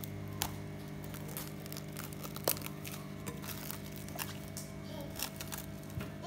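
Plastic cling film crinkling and crackling as it is stretched over a glass bowl and pressed down at the rim, with a few sharper crackles. A steady low hum runs underneath.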